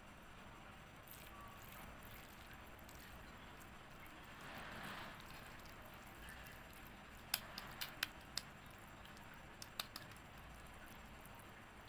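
Faint squishing of hands working raw spiced beef mince in a stainless steel bowl, with a few sharp light clicks in two short clusters in the second half.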